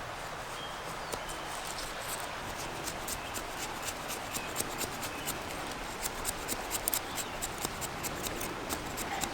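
A knife shaving fatwood into feather sticks: a run of short, dry scraping strokes, a few a second, growing sharper in the second half.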